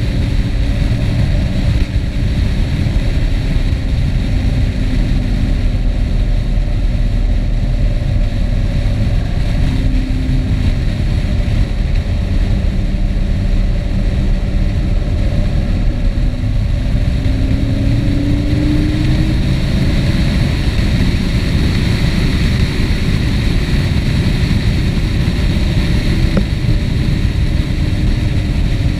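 Steady wind rush and road noise from a moving vehicle, recorded by an action camera on the move. A faint engine note rises and falls in pitch under the noise, climbing clearly a little past halfway.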